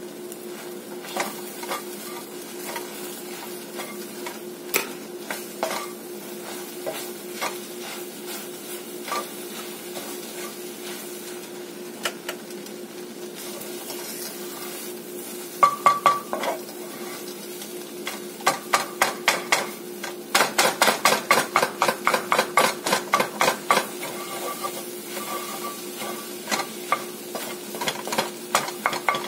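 A wooden spatula stirring and scraping food in a cast iron skillet over a steady frying sizzle. Scattered knocks and scrapes at first, then a quick run of rapid, regular scraping strokes for several seconds in the second half.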